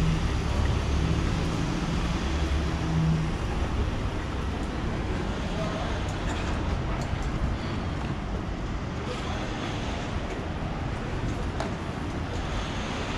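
A parked box truck's engine idling with a steady low hum for the first three seconds or so, fading into general street traffic noise.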